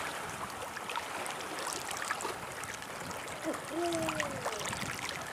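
Shallow seawater lapping and trickling, with a few faint ticks, and a short falling tone about four seconds in.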